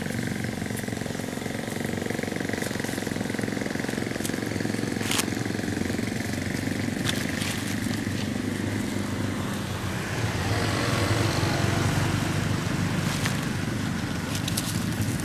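An engine running steadily, growing louder about ten seconds in, with a few faint sharp clicks.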